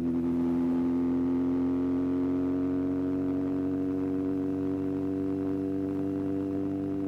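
Yamaha XJR1300's air-cooled inline-four engine running at a steady speed, its pitch creeping slightly higher.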